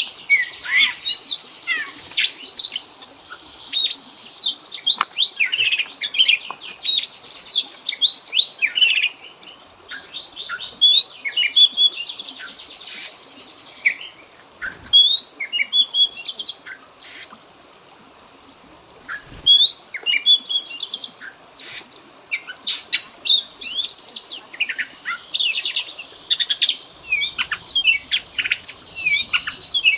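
Oriental magpie-robin (kacer) singing a long, varied song of quick whistles, chirps and trills in shifting phrases, the kind of 'full isian' song packed with mimicked calls of other birds. There is a break of about two seconds a little past the middle.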